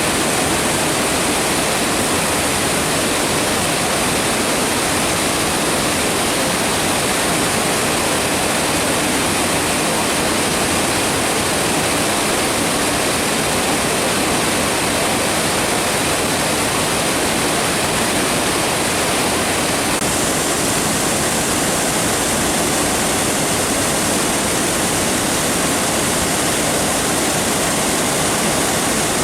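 Waterfall crashing, a loud steady rush of falling water.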